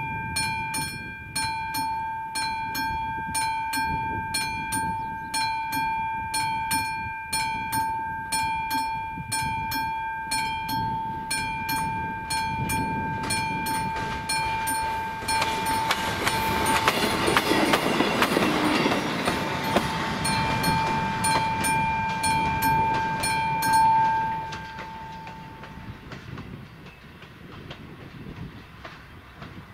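Level-crossing warning bell ringing at about two strikes a second. A passenger train passes over the crossing around the middle, its running noise swelling to the loudest part and fading out. The bell stops near the end, once the crossing clears.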